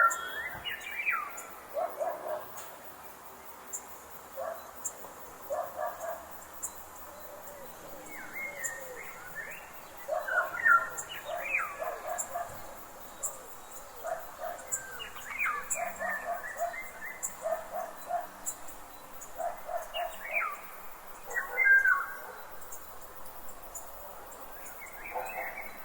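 Forest birds calling in bursts: quick sweeping whistled notes over repeated short, clustered lower chirps, about four times, with a faint high ticking throughout.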